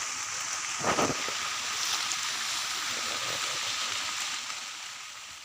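Steady rain hiss, fading over the last second.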